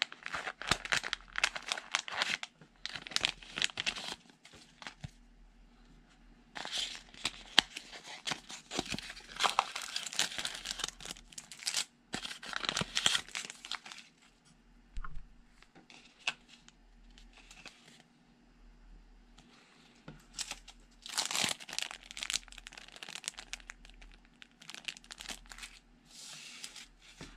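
Clear plastic packaging bags crinkling and tearing as they are opened and handled, in several bursts with a quieter pause around the middle.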